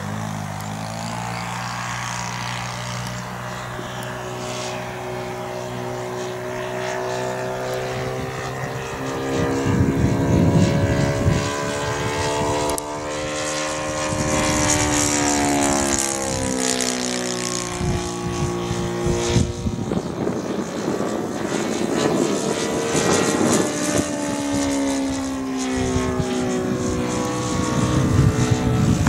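Saito FG30 single-cylinder four-stroke gasoline engine running in flight on a radio-controlled Hawker Hurricane model. Its pitch rises and falls several times as the plane makes its passes.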